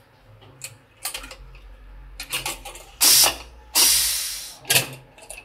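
Aluminium pressure cooker being opened after cooking: metal clicks of the lid and whistle weight being handled, then two short hisses of leftover steam escaping about three seconds in, the second fading away.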